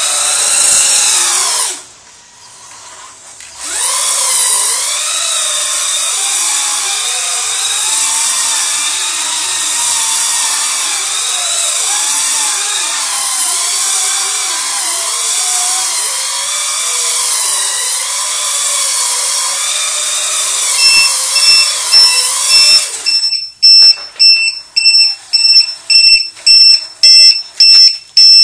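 Electric RC truck motor whining at speed, its pitch wavering as it spins donuts on wet concrete; about 23 seconds in the motor stops and a low-voltage alarm starts beeping about twice a second, the sign that the 2-cell LiPo battery is drained.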